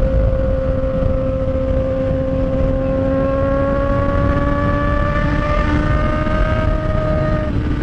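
Honda Hornet's inline-four engine with a 4-into-1 straight-pipe exhaust, running at highway speed. The revs climb slowly, then dip briefly near the end, over a steady rumble of wind on the microphone.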